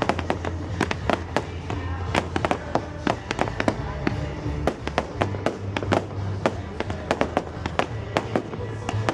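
Fireworks going off in quick succession: a dense string of sharp bangs and crackles, several a second, over music played on loudspeakers.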